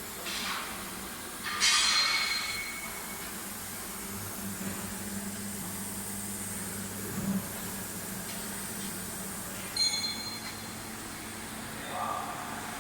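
Automatic longitudinal seam welding machine running with a steady electrical hum, punctuated by several short hisses of air. The loudest hiss comes a little under two seconds in, and there is a sharper hiss with a metallic ring about ten seconds in.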